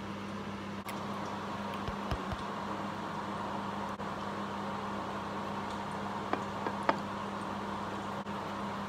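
Steady hum of a kitchen appliance or fan. A few soft thumps and two sharp clicks come through it as burger buns and patties are handled on a plate.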